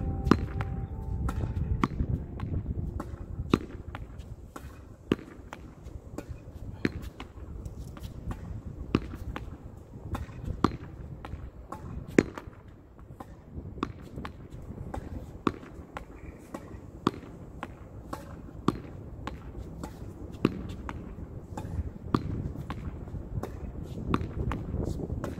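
A ball struck again and again against a wall, a sharp knock about every second and a half with fainter clicks in between, over a steady low rumble.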